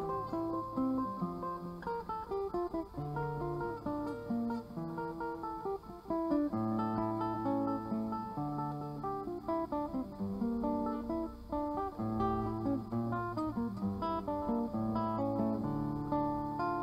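Solo nylon-string classical guitar played fingerstyle: a continuous flow of picked notes over held, ringing bass notes.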